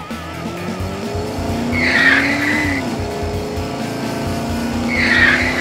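Cartoon car sound effects: an engine running and changing pitch, with a tyre screech about two seconds in and another near the end, as the toy car takes hard turns.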